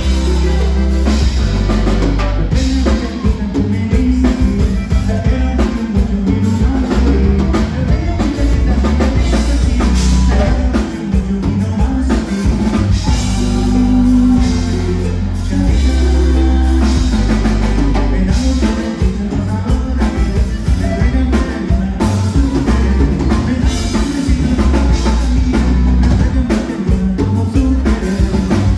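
Live conjunto band playing a dance number: button accordion, twelve-string bajo sexto, electric bass and drum kit, loud and steady with a driving beat.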